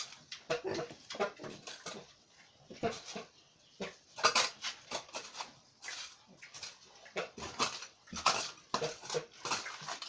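Pigs grunting and squealing in short, irregular calls.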